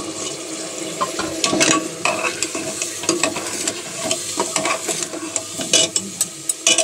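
A metal ladle stirring beef and spices frying in oil in a pressure cooker: a steady sizzle broken by irregular scrapes and clicks of the ladle against the pot, the sharpest near the end. The meat and masala are being fried (bhuna) just after the coriander, chili, turmeric and salt have gone in.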